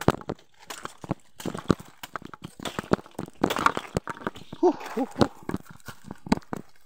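Footsteps crunching on dry leaf litter and brushing through tall grass and undergrowth, an irregular run of crackles and rustles. A short pitched sound comes through about five seconds in.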